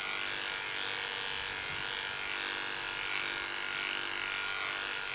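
Electric dog grooming clippers with a comb attachment running steadily, a constant motor buzz, as they trim the coat along a dog's leg.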